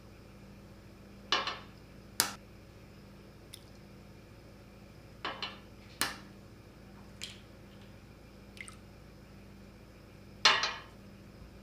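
Eggs being cracked on a glass bowl and dropped in: sharp taps of shell on glass with brief wet splats, coming in three clusters a few seconds apart.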